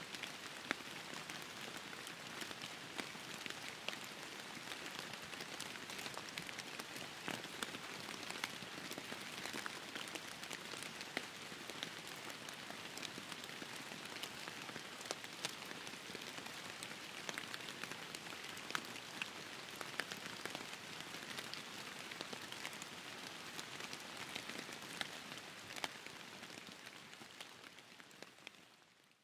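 Steady rain falling, with many small sharp drop ticks scattered through it; it fades out near the end.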